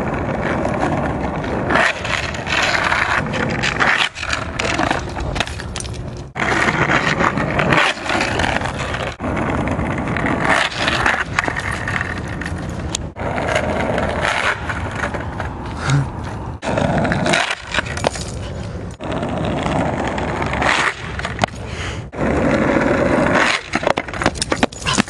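Skateboard wheels rolling on rough asphalt, a continuous rumbling rush that swells and fades, broken several times by brief gaps and sharp clacks.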